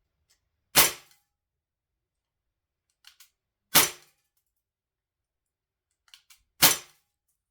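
Walther P99 DAO CO2 blowback airsoft pistol firing three single shots about three seconds apart, each a sharp crack with a short tail. Faint clicks come just before the second and third shots.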